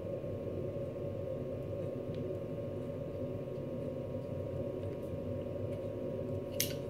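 Steady low hum in the room, with a small sharp click near the end as the new takedown lever snaps into the SD40VE's polymer pistol frame.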